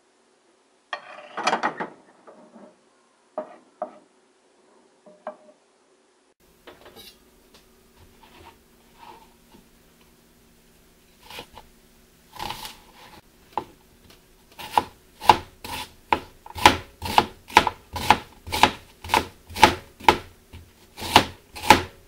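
Kitchen knife slicing an onion thinly on a plastic cutting board, each stroke ending in a knock on the board; the cuts come sparse at first, then settle into a steady rhythm of about two a second in the second half. A short scraping clatter comes about a second in.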